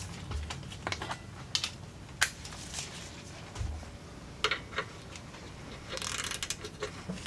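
Ratchet wrench clicking in irregular bursts on a seized, rusted rear brake caliper bracket bolt as the handle is worked back and forth, with a couple of dull knocks and a brief rattle about six seconds in; the bolt will not budge.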